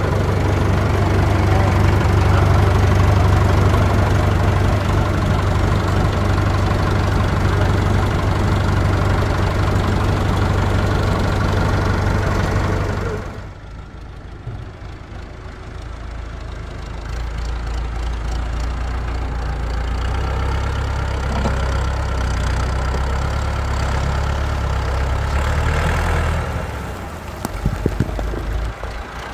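Orange front-loader tractor's diesel engine running steadily, heard close up for the first half, then more distant after a sudden drop in level. Near the end comes a brief clatter of soil and rocks tipping from the loader bucket onto a dirt pile.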